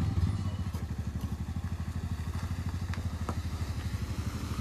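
Motorcycle engine idling with a quick, even, low-pitched beat.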